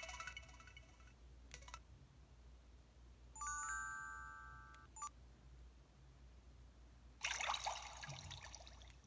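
Built-in sound effects of an EV-W250 'Black Cube' mobile phone played one after another: a short chime at the very start, a held electronic chime of several tones about three and a half seconds in that fades over a second and a half, and near the end a splashy, water-like effect.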